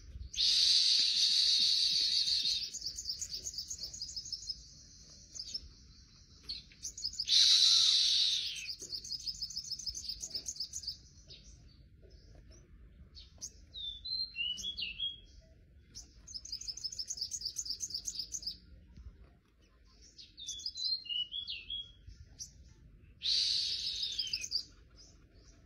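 A caged sunbird singing: rapid trills of high, evenly repeated notes, short twittering phrases that swoop up and down in pitch, and three loud harsh rasping bursts, the longest about two seconds.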